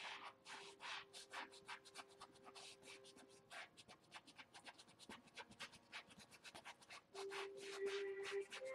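Faint, quick scratching of a fine paintbrush stroking across canvas, many short strokes in rapid succession. A louder steady tone comes in about seven seconds in.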